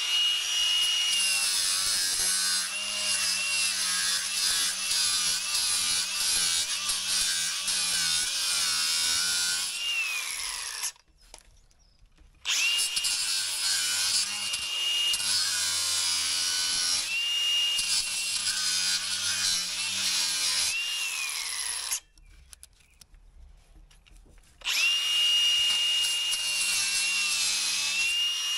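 Small cordless angle grinder running with a high steady whine as its disc grinds the fins off the top of a uPVC window frame. It runs in three stretches, winding down and stopping twice before starting again.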